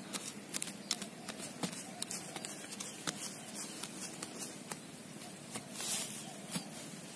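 Thin iron crowbar jabbing into grassy soil and levering against it to loosen a small plant's root ball, giving irregular short knocks and scrapes with rustling grass.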